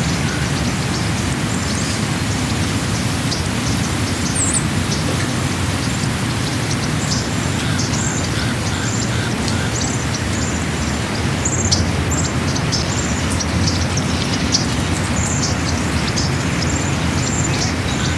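Small birds chirping over and over in short, high calls, above a steady rushing noise.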